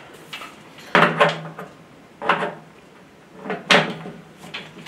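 A welding lead's DINSE plug and heavy cable being handled and pushed into the welder's front socket: three short knocks and rubs, about a second apart.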